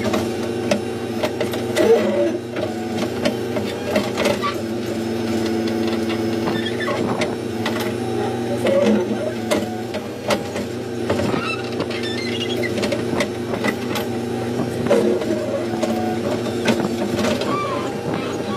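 Backhoe loader's diesel engine running under load, heard from inside the cab: a steady drone with several held tones, and scattered clicks and knocks as the levers are worked and the backhoe arm digs.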